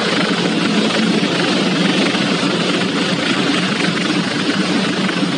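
A car driving fast: a steady engine drone under heavy, even wind and road noise, heard from inside the car.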